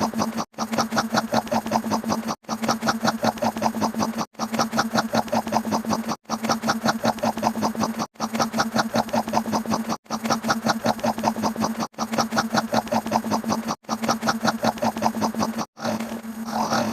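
A short engine-like sound effect, a fast pulsing rattle of about ten beats a second over a steady hum, played over and over in two-second loops with brief silent gaps between them. Near the end it gives way to a different, sweeping sound.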